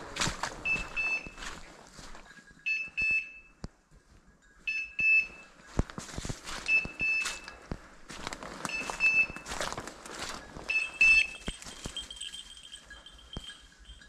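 A hunting dog's beeper collar sounds a high electronic beep about every two seconds, the signal that the setter is standing on point. Footsteps crunch through dry leaf litter between the beeps.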